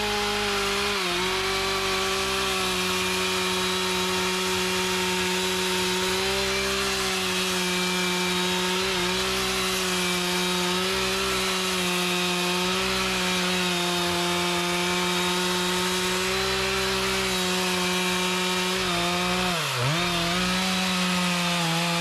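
Chainsaw held at full throttle, cutting steadily through mahogany wood. Its engine note stays even, then dips briefly near the end as the chain bites harder and picks straight back up.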